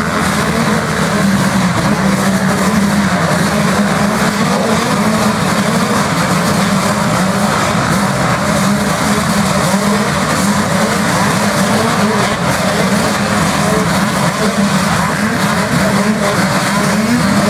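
A pack of motocross bikes racing, many engines at high revs blending into one loud, continuous drone whose pitch wavers slightly.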